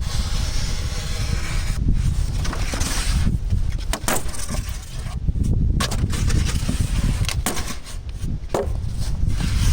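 Wind buffeting the microphone, with the scraping of a knife blade cutting through rigid foam insulation board and several sharp clicks and snaps.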